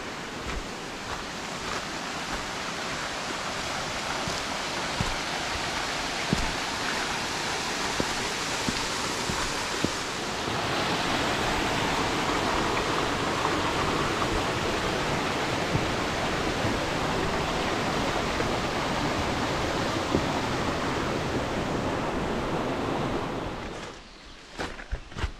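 A stream rushing over rocks, a steady rush that grows louder and stays at its loudest for over ten seconds, then drops away suddenly near the end. Footsteps on the trail come through once the water fades.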